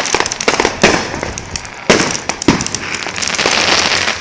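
Firework fountain spraying with a steady hiss, broken by several sharp, loud pops, the strongest about a second and two seconds in.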